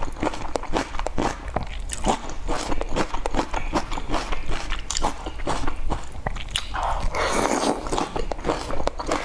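Close-up wet mouth sounds of eating soft cooked leafy greens: many sharp, moist chewing clicks, with a longer slurp about seven seconds in as a saucy strand is sucked in.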